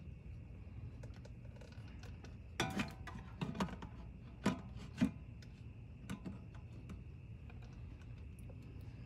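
Scattered light clicks and knocks of a wrench and bleed hose being handled at a brake bleeder screw, clustered in the middle, over a faint steady high hum.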